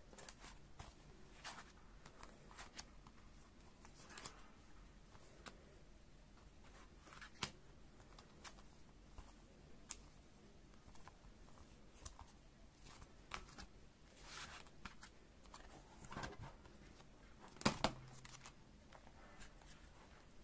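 Faint handling of photo cards in plastic sleeves and clear binder pockets: scattered light taps and brief plastic rustles, with one sharper knock about three-quarters of the way through.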